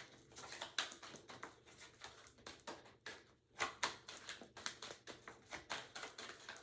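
Tarot deck being shuffled by hand: a quick, irregular run of soft card clicks and flicks.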